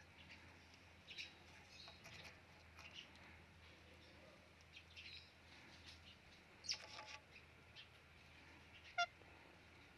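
Faint, soft chirps and clicks from an Indian ringneck parrot, with a short louder burst of chirps about seven seconds in and a brief call near nine seconds.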